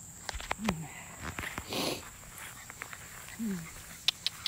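Cane Corso puppies playing in grass: two short falling grunts and some scuffling and rustling. A few sharp, high chirps come near the end.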